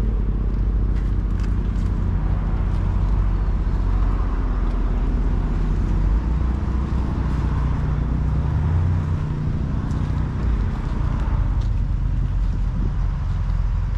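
Car engine running steadily, a low drone whose pitch shifts briefly about eight to nine seconds in.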